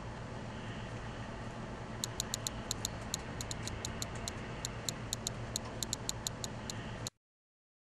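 A ticking sound effect: sharp, bright clicks at about four a second, starting about two seconds in over a steady low hum and hiss. All sound cuts off suddenly about seven seconds in.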